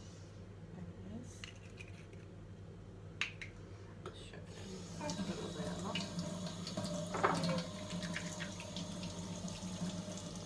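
Kitchen tap turned on about halfway through, water running into the sink, with a light knock a couple of seconds later.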